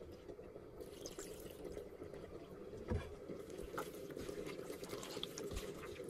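Water poured into a pot of raw, spice-coated pork pieces, followed by the wet squelching of a gloved hand mixing the meat. There is a dull thump about three seconds in.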